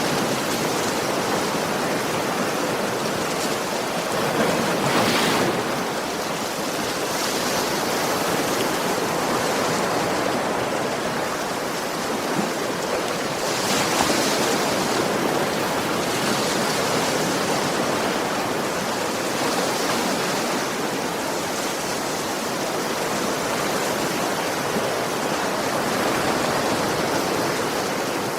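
Ocean waves breaking gently on a shore: a continuous wash of surf, with a louder, hissier surge about five seconds in and again about fourteen seconds in.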